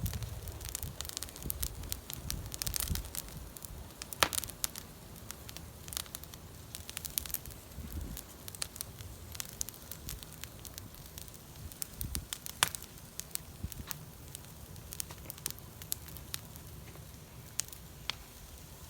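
Bonfire crackling, with burning wood giving off irregular sharp pops and snaps over a low rumble. Two pops stand out louder, about four seconds in and again about two-thirds of the way through.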